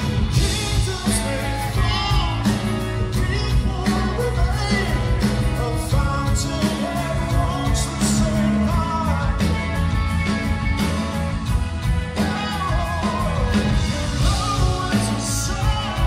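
Progressive rock band playing live, drums, bass and keyboards under a male lead vocal singing.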